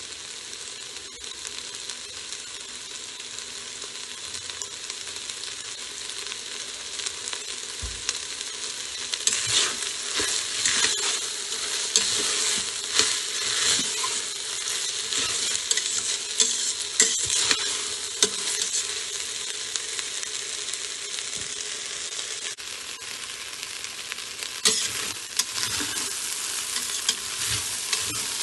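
Basmati rice and vegetables sizzling as they fry in an Instant Pot's stainless steel inner pot, with a metal spatula stirring and scraping against the pot. The scraping is busiest through the middle and picks up again near the end.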